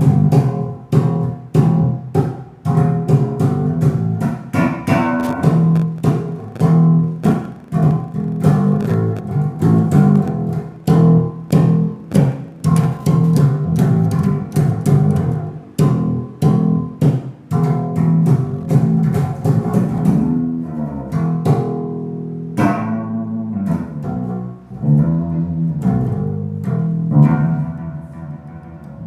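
Bass guitar playing a rhythmic line of plucked notes with a hollow tone and sharp, percussive attacks.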